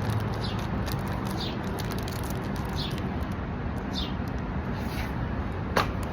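A small bird chirping repeatedly, short falling notes about once a second, with one louder downward-sweeping chirp near the end, over a steady low rumble.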